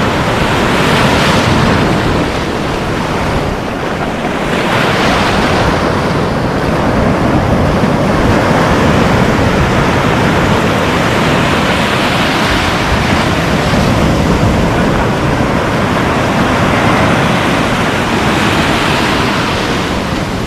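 Surf breaking and washing on the beach, a loud steady rush that swells and eases every few seconds, mixed with wind buffeting the microphone.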